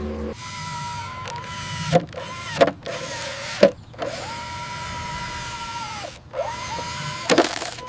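Small electric motors of a radio-controlled model excavator whining in several runs, each rising in pitch as it starts and dropping as it stops, with a few sharp clicks and knocks between runs.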